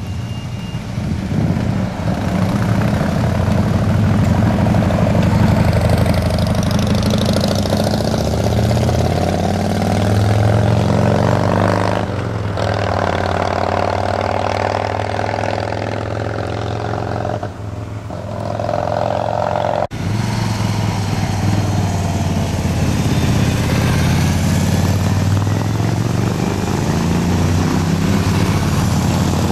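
Motorcycle engines passing through a hairpin bend one after another, the pitch rising and falling as they rev. The sound breaks off abruptly about two-thirds of the way in, and another engine carries on.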